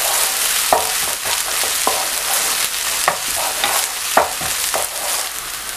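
Chopped onions and green chilli sizzling in oil in a nonstick kadai while a wooden spatula stirs them, scraping the pan in repeated short strokes over a steady hiss.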